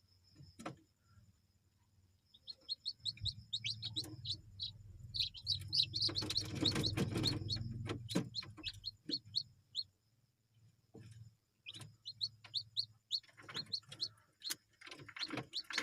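Young chickens peeping: runs of short, high, falling peeps that come and go, over a steady low hum, with a louder burst of noise about halfway through.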